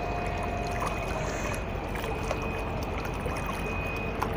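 Steady wash of shallow seawater and wind at a rocky shoreline, with a faint steady high whine and a few light ticks.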